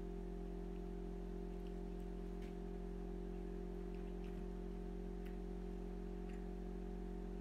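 A steady hum made of several unchanging low and mid tones, with faint short clicks scattered through it.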